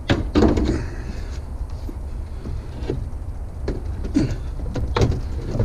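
Vehicle engine idling with a steady low rumble, with several clunks and knocks from scrap being handled, the loudest just after the start and near the end.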